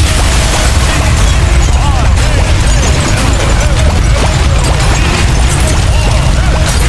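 Storm wind from a tornado buffeting the microphone in a loud, unbroken roar.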